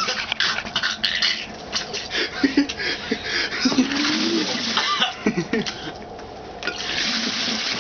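A man vomiting milk into a plastic bucket: gushes of liquid splashing into the bucket, broken by gagging, retching groans, with a steadier pouring rush near the end.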